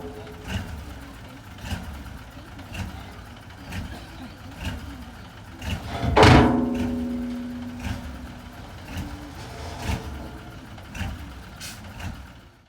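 Construction-site noise: sharp knocks about once a second over a running engine, with one loud strike about six seconds in that rings on for more than a second.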